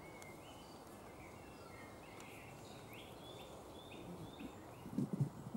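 Songbirds singing in the surrounding trees: short chirped phrases, with a quick run of four alike notes about three seconds in. Near the end come a few low thumps of a microphone being handled on its stand.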